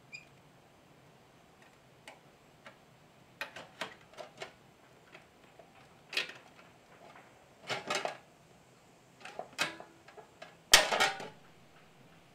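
Hand pop-rivet gun squeezed repeatedly to set rivets along the seam of a sheet-metal toolbox: a series of sharp clicks and metallic clacks in irregular clusters, the loudest near the end.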